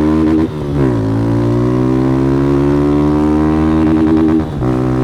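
Motorcycle with an aftermarket Fortuna Trioval exhaust accelerating hard through the gears. Engine pitch drops at a shift about half a second in, climbs steadily for more than three seconds, then drops again at the next shift near the end.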